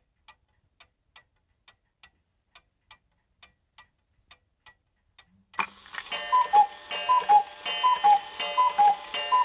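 Podcast intro jingle: a faint clock ticking in an even tick-tock, then about five and a half seconds in, louder music starts with a high two-note figure alternating over and over like a chiming alarm.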